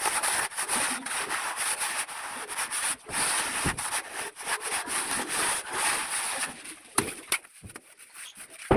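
A hand plastering tool rubbing and scraping over wet cement plaster on a wall in quick, repeated strokes. The scraping stops about two-thirds of the way through, leaving a few sharp knocks.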